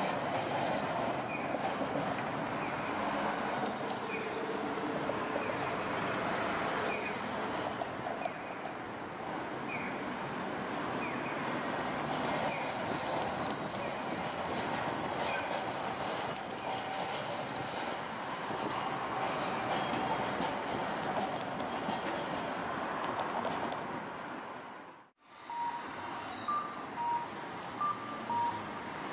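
Street traffic with Tosaden streetcars rolling across the junction, their wheels and motors mixed with passing cars. Near the end the sound cuts out briefly, then regular short electronic beeps come in, about two a second.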